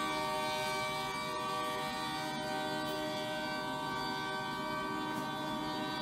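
Diesel locomotive air horn blaring without a break, a steady chord of several notes held throughout, over a low rumble.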